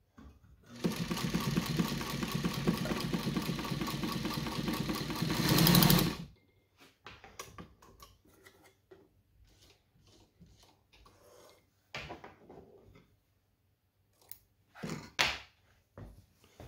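Vintage New Home SKY sewing machine running steadily for about five seconds as it stitches through thick split leather, getting louder just before it stops. Then scattered clicks and rustling as the leather is pulled out from under the presser foot.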